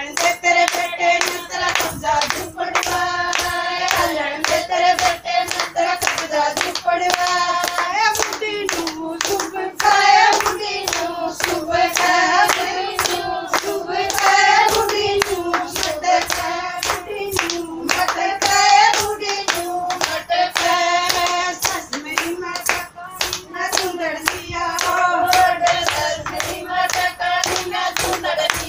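A group of women singing a Haryanvi folk song in unison, with no instruments, while clapping their hands to a steady quick beat.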